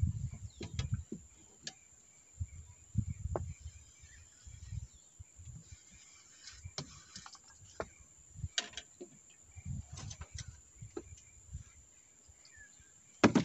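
Irregular clicks and knocks with some dull low thumps, over faint bird calls.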